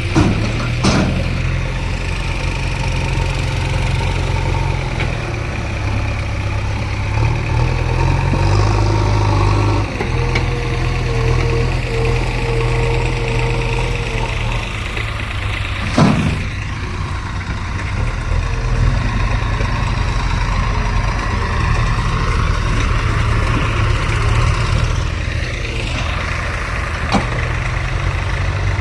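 Diesel engine of a backhoe loader running steadily, its pitch shifting about ten seconds in. Three sharp knocks cut through: about a second in, just past halfway, and near the end.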